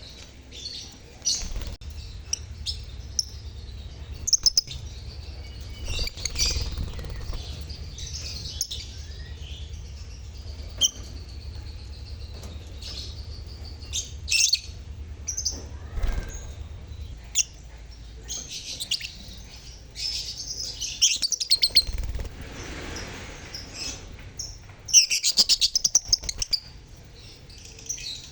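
A colony of lovebirds (Agapornis) in an aviary chirping and chattering in many shrill, overlapping bursts, the loudest near the end. A faint low rumble lies underneath for the first two-thirds.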